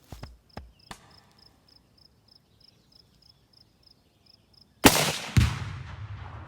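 A .270 rifle shot about five seconds in, followed half a second later by the boom of about a pound of Tannerite exploding target going off inside a refrigerator, with a low rumble trailing away. Before the shot, an insect chirps steadily in the quiet.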